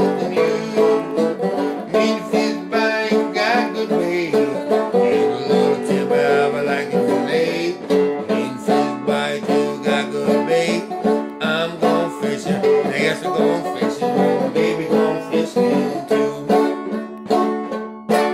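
Banjo played old-time style: a run of plucked notes in a steady, even rhythm.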